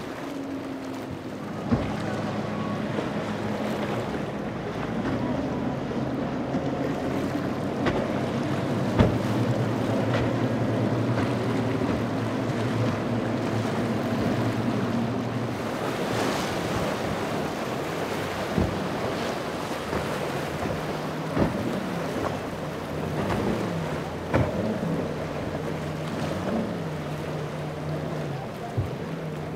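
Outboard motors of boats running past at speed, a steady engine drone that changes pitch from one boat to the next, over the wash and spray of their wakes and waves. Wind buffets the microphone, and a few sharp knocks stand out.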